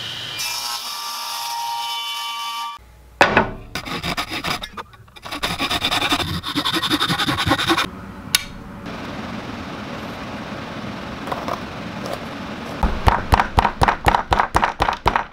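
Wood being cut in a series of short shop clips: a table saw whining as its blade cuts through a board, then rhythmic back-and-forth strokes of hand tools sawing and rasping wood, fastest near the end.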